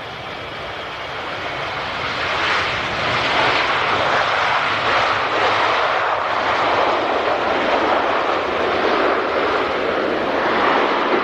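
Airplane engines at take-off power, with a loud rushing noise that grows over the first few seconds and then holds steady.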